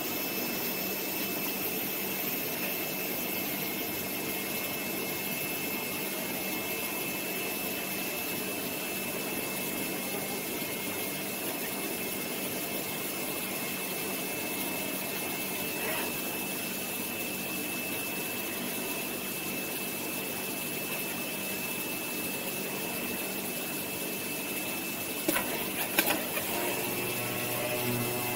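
DCZ70 CNC V-cut cutting table running, a steady whir with a thin high whine over it, while it V-cuts grey cardboard. A few sharp clicks sound about three seconds before the end.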